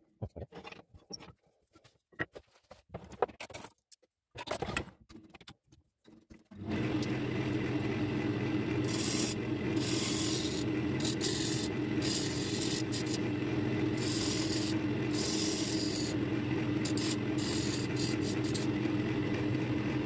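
Irregular scraping and rubbing on wood, stop-start, for about six seconds. Then a machine motor starts suddenly and runs steadily with a low hum, with intermittent bursts of hissing on top.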